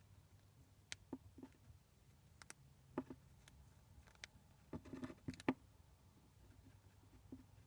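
Chinchilla gnawing a peanut: faint, irregular crunching clicks from its teeth, with a quick run of them about five seconds in.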